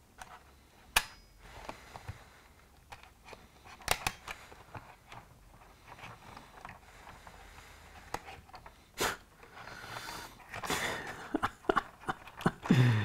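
Small, sharp plastic clicks and taps as a Bachmann NEM vacuum-pipe coupling is worked into the NEM pocket of an OO gauge model coach, with the loudest clicks about one, four and nine seconds in. The coupling is fiddly and resists going in.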